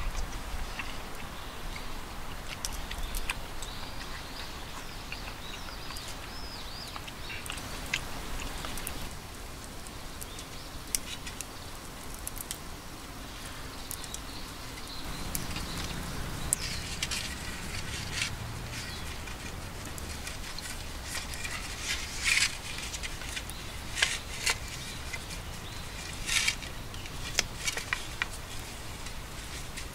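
Wooden poles and cord being handled as the poles are lashed together into a tripod: light rustling and knocks, with short sharp scratchy rasps of the cord pulled over the wood in the second half.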